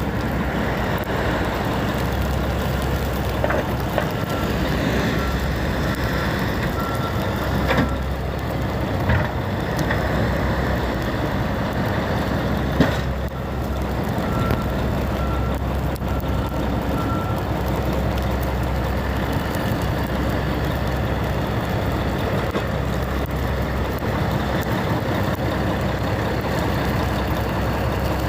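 Heavy snow-removal vehicles running steadily, with a reversing alarm beeping at one pitch in two runs of a few seconds each. A few sharp knocks, the loudest about halfway through, cut across the engine noise.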